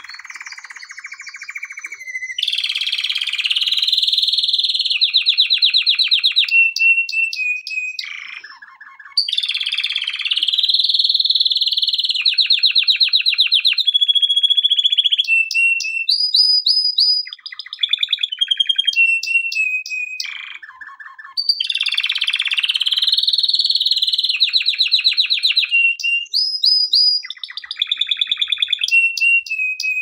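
Male domestic canary singing a long, loud song of rapid trills and short held whistled notes, broken by two brief pauses.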